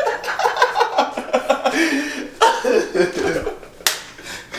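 A group of young men laughing and chuckling amid indistinct talk, with a short sharp sound near the end, perhaps a cough.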